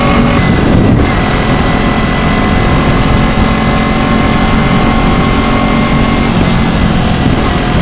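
Kawasaki Ninja 250 parallel-twin engine running at a steady cruising speed, its pitch holding level, under a loud rush of wind over the microphone.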